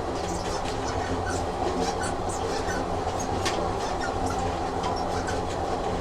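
Train running along the track: a steady rumble with faint, scattered rail clicks.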